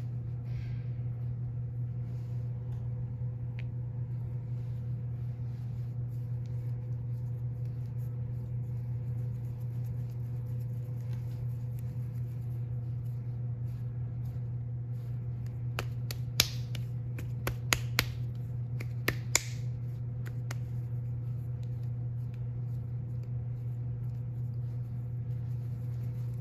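Hands handling wet clay on a work board: a handful of light, sharp clicks and taps about two-thirds of the way through, over a steady low hum.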